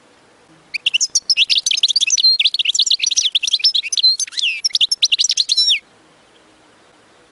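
European goldfinch singing one rapid, twittering song phrase of quick chirps and trills, starting about a second in and stopping abruptly after about five seconds.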